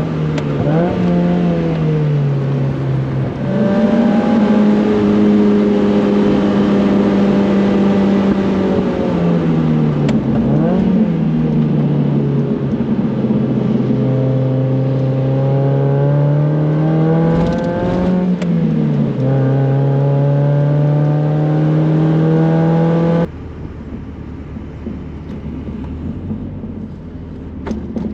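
A 1999 Mazda Miata's four-cylinder engine, heard on board during hard track driving. The pitch climbs under acceleration and falls away when off the throttle, several times over. About 23 seconds in, the sound drops suddenly to a much quieter low rumble.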